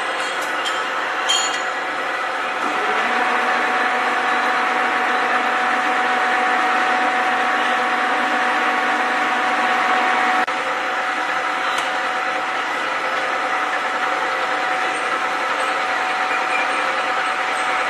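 Horizontal boring mill's rotary table being turned under power: a steady machine whine with several held tones. Part of it drops out about ten seconds in while the rest runs on.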